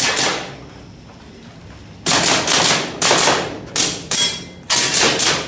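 Airsoft pistol firing: one shot at the start, then a quick string of about eight shots from about two seconds in, each with a short echo.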